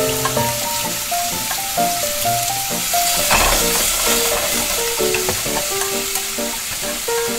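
Battered tempura frying in a miniature pot of hot oil: a steady sizzle, stirred with a thin skewer, swelling briefly about three and a half seconds in. A background melody plays over it.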